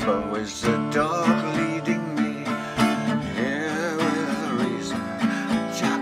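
Acoustic guitar strummed in a steady rhythm, an instrumental passage between the verses of a folk-style song.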